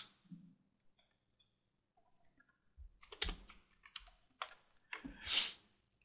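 Scattered faint clicks and small knocks of a computer mouse being clicked and moved, mostly in the second half, with a short rustle about five seconds in.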